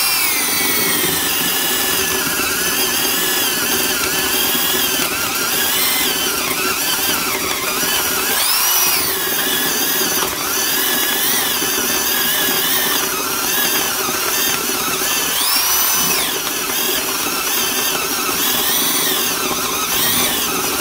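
Makita 6510LVR 3/8-inch corded drill boring a 1-1/8-inch spade bit into wood. The motor's whine keeps dipping in pitch and recovering as the bit bites, the drill labouring under the load.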